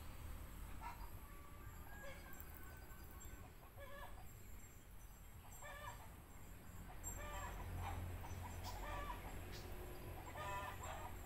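Chickens calling off and on: runs of short, repeated notes every second or two, over a low steady rumble.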